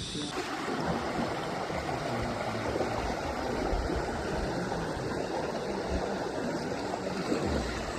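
Rushing water of a canyon stream, a steady noisy rush with occasional low rumbles.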